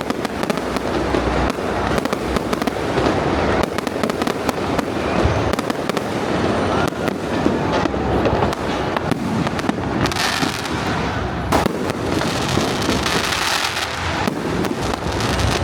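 Aerial fireworks display: a dense, continuous barrage of bangs and crackling, with shells bursting in quick succession and stretches of bright crackling hiss.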